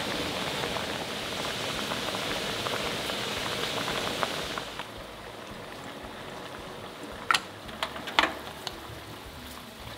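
A pot of liquid boiling on the stove, bubbling steadily. About halfway through the bubbling gets quieter, and two sharp clinks about a second apart come near the end.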